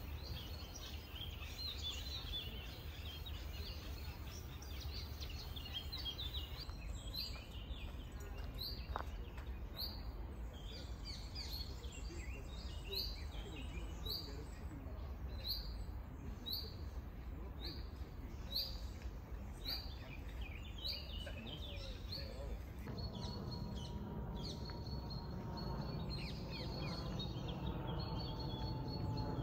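Wild birds singing over a steady low background hum: varied warbling song at first, then a single bird repeating a short high note about once a second. Near the end a low rumble with a faint, slowly falling drone rises beneath the birdsong.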